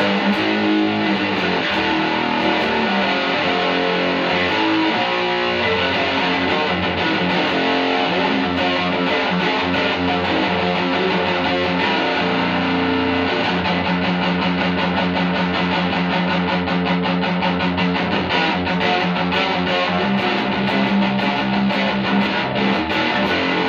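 Electric guitar played through a homemade single-ended tube amplifier built around 1930s AF7 and AL4 pentodes, giving a dense, heavily distorted metal sound of steady, sustained chords. The amp still goes too far into saturation, which the builder puts down to a tube being overdriven.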